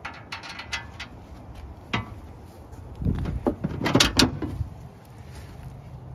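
Flexible off-road fender flare being bent and pressed against a Jeep Wrangler's rear wheel arch: light clicks and knocks, with a louder flurry of knocks and rattles about three to four and a half seconds in.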